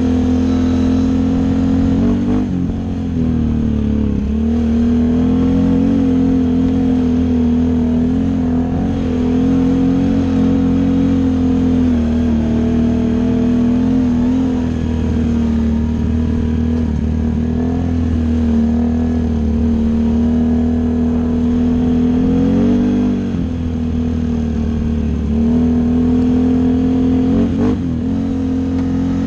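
Can-Am XMR 650 ATV engine running at a steady throttle while riding a dirt trail. Its note dips and picks up again a few times, about two seconds in, past the middle, and near the end, as the throttle is eased and reopened.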